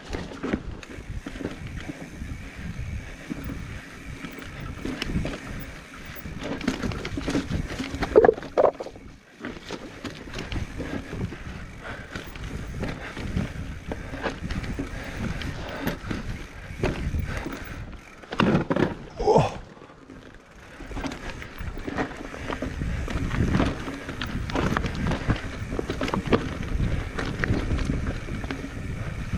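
Mountain bike (Commencal Meta Trail 29) clattering down a very rocky trail with steps and drops: a continuous, irregular rattle and knocking of tyres, chain and frame over the rocks. Brief squeals cut in about eight seconds in and again around nineteen seconds, the loudest moment.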